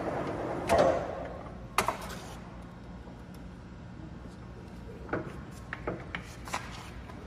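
Large engine lathe's running noise fading away over the first two seconds, leaving a low steady hum. Several sharp clicks and knocks are heard along the way, a cluster of them near the end.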